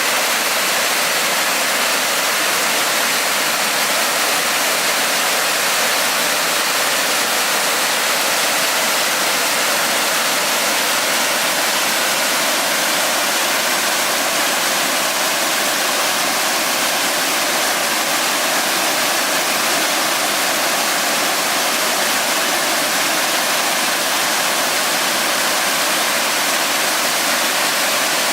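Waterfall pouring steadily: a constant rush of falling water, mostly high and hissing with little low rumble.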